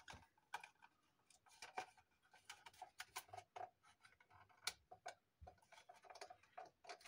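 Faint, irregular clicks and ticks of thin wire being bent into small hooks by hand.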